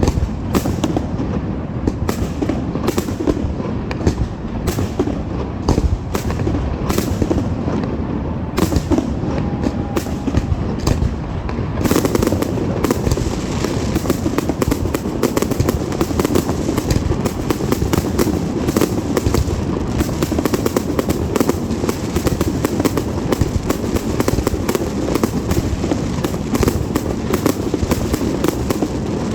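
Fireworks display: a continuous barrage of bangs and crackles that grows denser about twelve seconds in.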